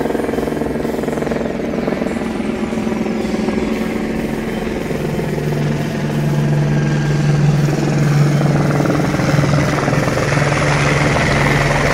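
Helicopter running close by: steady rotor and turbine noise over a low hum, which grows louder and rises slightly in pitch about halfway through.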